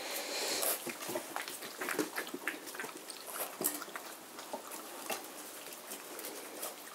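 German shorthaired pointer puppies lapping and nosing at a stainless-steel bowl: a quiet, irregular run of small clicks, slurps and clinks.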